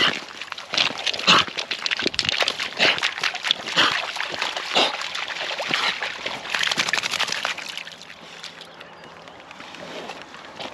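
English springer spaniels splashing and sloshing through shallow lake water over a pebbly shore, in irregular bursts that die down after about eight seconds.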